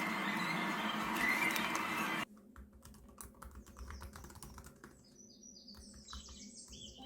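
A loud, dense stretch of background sound cuts off suddenly about two seconds in. Quiet keyboard typing follows: a steady run of light key clicks. Birds chirp over it in the second half.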